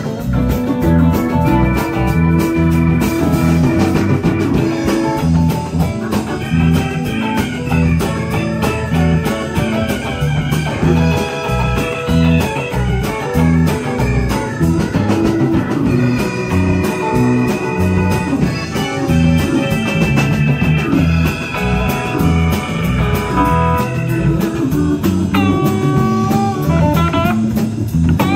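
Live blues-rock band playing an instrumental break, with an electric guitar lead over bass, drums and keyboards. The guitar bends notes near the end.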